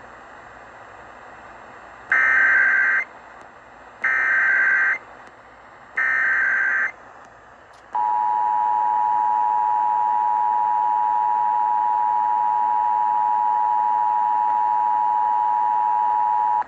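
Emergency Alert System tones over an AM radio broadcast: three one-second bursts of warbling SAME data header, about two seconds apart, then from about eight seconds in the steady two-tone EAS attention signal (853 and 960 Hz) sounding without a break. Between the bursts a faint broadcast hiss is heard.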